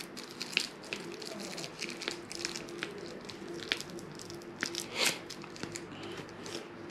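Thin clear plastic wrapping crinkling and rustling in the hands as it is worked off a collectible action figure's legs and feet, in a run of small irregular crackles with a louder one about five seconds in.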